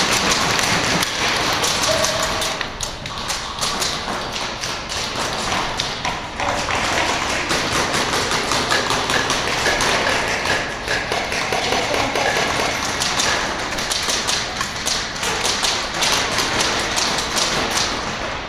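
Airsoft guns firing during a game: a dense stream of sharp taps and clicks from shots and BBs.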